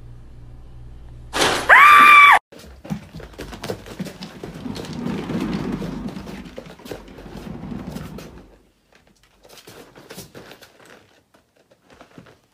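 A loud, high-pitched cry lasting about a second, cut off sharply. Then a cat exercise wheel thumping and rumbling irregularly for about six seconds as a cat runs in it, followed by a few faint clicks.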